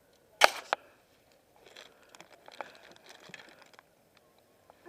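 A sharp knock about half a second in and a smaller one just after, then a run of light clicks and rustling: handling noise while a freshly netted trout and the gear are dealt with.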